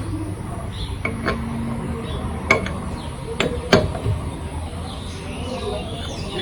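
Sharp metal clinks and knocks from the steel tools of a car's tyre-changing kit being handled and fitted, about six in the first four seconds, over a low steady hum.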